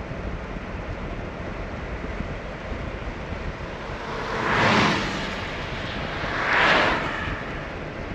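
Steady road and engine rumble of a moving car heard from inside, with two vehicles whooshing past, about four and a half and six and a half seconds in, each swelling and fading within about a second.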